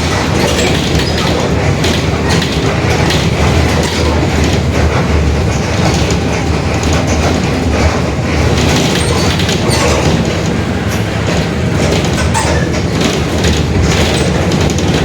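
Mercedes-Benz OF-1721 Bluetec 5 bus on the move: the front-mounted diesel engine and drivetrain running with a steady low drone, the rear differential growling, and many small rattles and clicks from the body.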